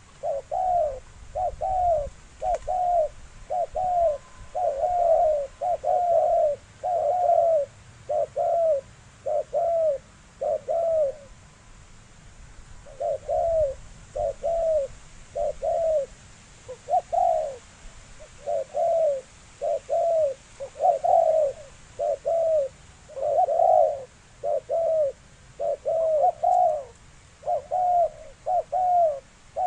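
Spotted dove cooing over and over: short, arched coos at about one to two a second, with one pause of a couple of seconds partway through.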